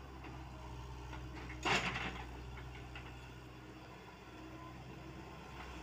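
Komatsu PC78UU mini excavator's diesel engine running steadily while digging, with one brief loud clatter about two seconds in.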